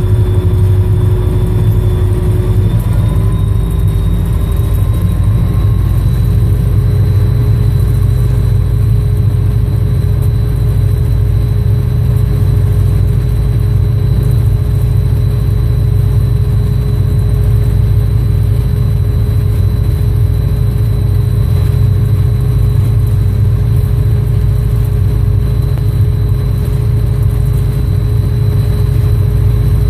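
EMD SD40-2 diesel-electric locomotive running under way, its 16-cylinder turbocharged two-stroke diesel giving a steady deep rumble. A thin whine over it steps up slightly in pitch a few seconds in, then holds steady.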